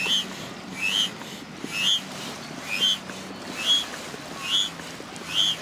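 Foot-operated bellows pump ('frog' pump) inflating a PVC inflatable boat. It is pumped at a steady rhythm of about one stroke a second, each stroke giving a short rising squeaky whistle of air through the pump.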